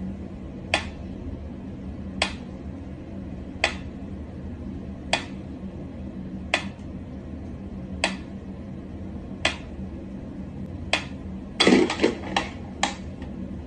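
Mechanical pendulum metronome ticking slowly, one sharp tick about every one and a half seconds. Near the end comes a quick run of several louder knocks.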